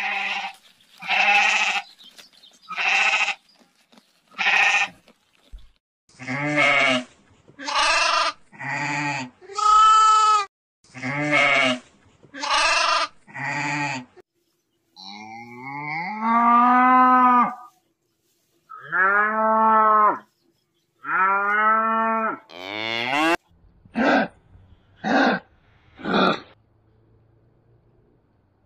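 An animal calling over and over: about twenty short, pitched calls in a row, with a few longer drawn-out calls in the middle whose pitch rises and falls.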